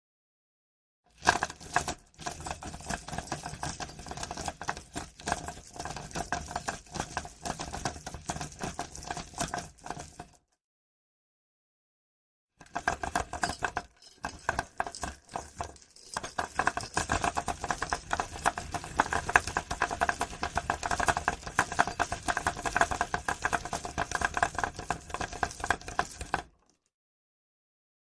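Metal chain being pulled, its links clinking and rattling against each other in a fast, uneven run. It comes in two long pulls, about nine and fourteen seconds long, with a silence of about two seconds between them.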